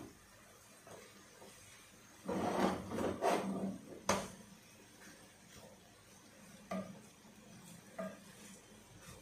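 Wooden spatula stirring and scraping rice in a frying pan, with a sharp knock against the pan about four seconds in and two lighter taps later.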